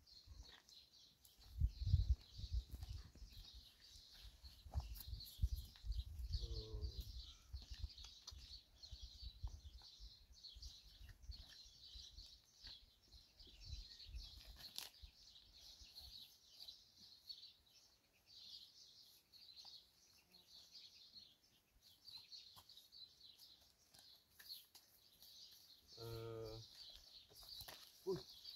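Small birds chirping steadily throughout, with low rumbling knocks in the first half and two brief pitched calls, the clearer one near the end.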